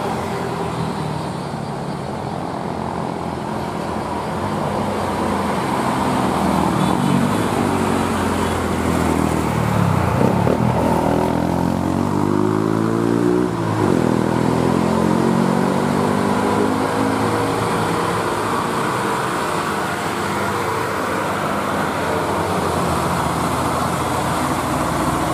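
An old Mitsubishi Fuso truck's diesel engine pulls up a steep hill, with other heavy diesel vehicles running alongside. Around the middle the engine pitch climbs over a few seconds and then drops off sharply. The truck's engine grows louder toward the end as it passes close.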